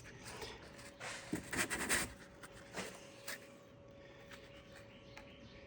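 Small sponge dabbing spray paint onto a rifle stock: a few soft scuffing dabs, mostly in the first three seconds or so, over a faint steady hum.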